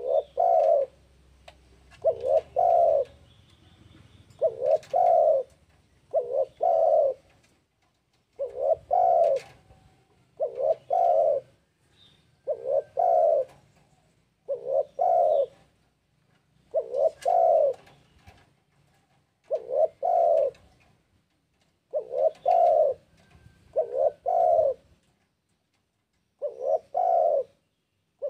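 Spotted dove (tekukur) calling over and over: each phrase is a short note followed by a longer rolling coo, repeated about every two seconds with a few short pauses. This is the loud, persistent song of a bird in breeding condition calling to rivals.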